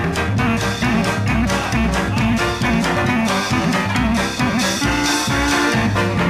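Upbeat swing-style instrumental music with brass and a steady beat.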